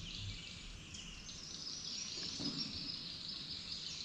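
Steady outdoor insect chorus, a continuous high buzz, with faint bird calls.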